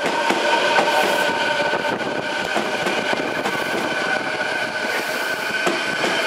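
Odakyu commuter electric train moving through the station: a steady running rumble with several high, steady whining tones held over it.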